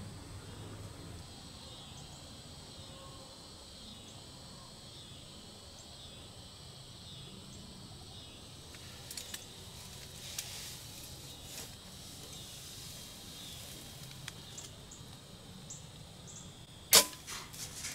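Quiet outdoor background with a few faint ticks, then near the end a bow being shot: one sharp, loud snap followed by a few quicker, weaker clicks.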